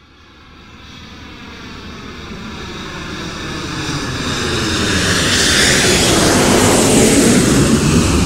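A rushing whoosh fades up from silence and swells steadily over several seconds, with a sweeping sheen in its pitch that peaks near the end, like an aircraft passing over: a sound effect opening the record before the music comes in.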